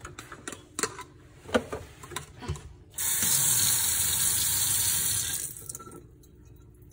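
A few light knocks and clicks, then a kitchen faucet runs for about two and a half seconds into a stainless steel sink as a plastic cup is filled, then shuts off.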